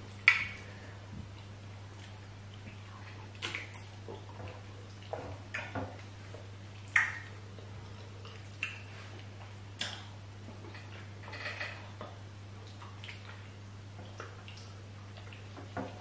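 Mouth and hand sounds of two people eating banku and okra stew with their fingers: scattered short wet clicks and smacks every second or two, the loudest near the start and about halfway through, over a low steady hum.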